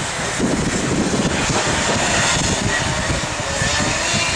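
Kart engines buzzing steadily as karts run round a wet track, mixed with an uneven low rumble of wind on the microphone.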